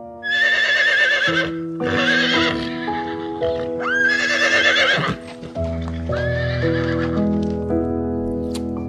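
Horse whinnying four times, each neigh about a second long with a high wavering pitch. The neighs sit over background music of steady held notes.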